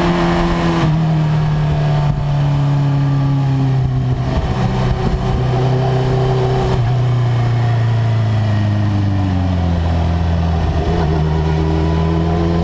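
Suzuki GSX-R1000 K5's inline-four engine, heard onboard, with its revs falling in several steps as the bike slows from about 80 to 30 km/h. The revs pick up slightly near the end.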